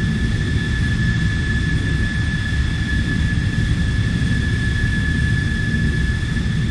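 Jet engines of a Ryanair Boeing 737-800 heard from inside the cabin at climb power after takeoff: a steady low rumble with a steady high-pitched whine over it.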